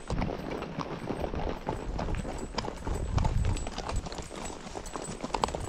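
Mule hooves clip-clopping at a walk on a dirt road, several animals' steps falling irregularly.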